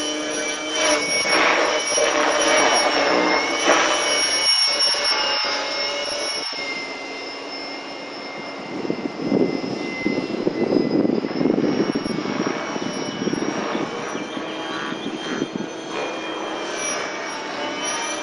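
T-Rex 600 electric RC helicopter in flight: a steady multi-tone whine from its electric motor and drive gears over rotor noise, the pitch shifting slightly as it manoeuvres. A rougher rushing sound swells up around the middle.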